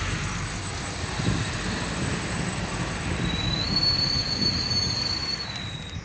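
Steady road and engine rumble of a moving vehicle, with thin, steady high-pitched squealing tones above it that jump to a new set of pitches about three and a half seconds in and stop shortly before the end.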